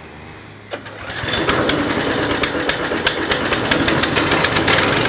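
Wood chipper's engine running; after a knock about a second in it speeds up and gets louder, with many sharp rattling clicks, and settles into a steady, louder run near the end.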